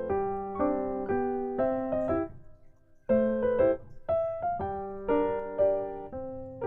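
Background piano music: chords played at an easy pace, with a short pause about two and a half seconds in before the playing resumes.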